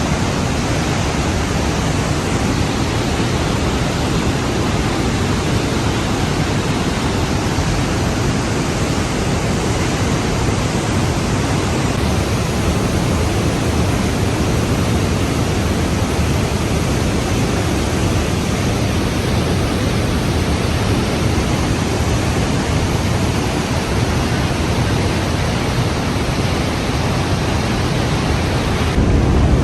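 Steady rushing of Trümmelbach Falls, glacial meltwater pouring down through the mountain in a dense, unbroken noise.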